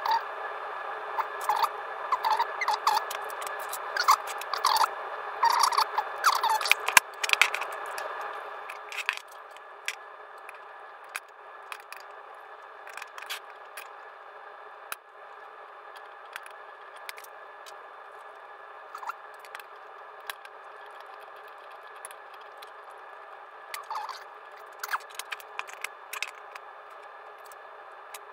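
Small clicks, scrapes and taps of hand tools and metal parts being handled on an open amplifier chassis. They are busy for the first eight seconds or so, then sparse, over a steady faint hum.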